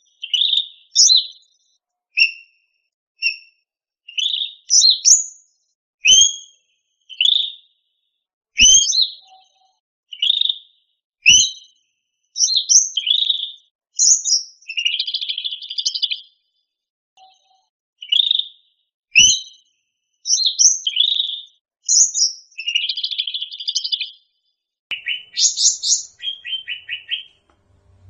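Cucak rante songbird singing: phrase after phrase of short, sharp chirps and whistled notes separated by brief pauses, with a fast trill of repeated notes near the end.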